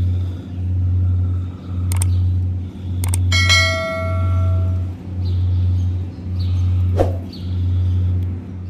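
A low hum that swells and fades about once a second throughout, like a nearby engine running. About three seconds in, a click and a bell-like ding that rings for over a second: the sound effect of a subscribe-button animation.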